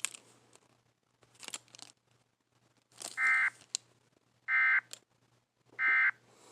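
Emergency Alert System end-of-message tones: three short digital data bursts, each under half a second and about 1.3 seconds apart. They mark the close of the alert.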